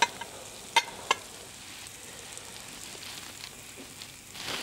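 Food sizzling in a hot frying pan, a steady hiss. Within the first second or so come three sharp clinks of kitchenware.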